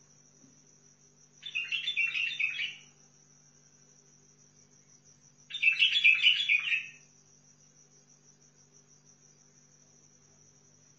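White-eared bulbul singing two short, bubbling warbled phrases about four seconds apart. A steady, high, thin insect-like buzz runs underneath.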